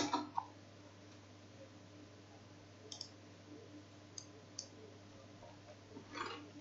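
Three faint, short clicks about three, four and four and a half seconds in, over a steady low hum, with a brief soft rustle just after six seconds.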